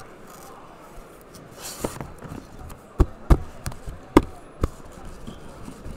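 Shrink-wrapped cardboard card boxes being pulled out of a cardboard shipping case and set down on a table: a brief rustle and scrape, then a few sharp knocks and thuds in the second half.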